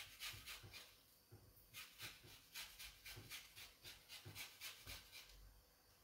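Lemon peel rubbed against a hand grater for zest: faint rapid rasping strokes, about four a second. They pause briefly about a second in and stop near the end.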